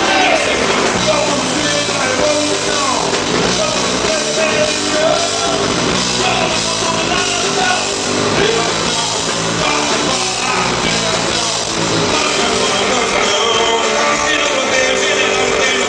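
Live rock band playing with guitars and drums, a singer's voice over the music.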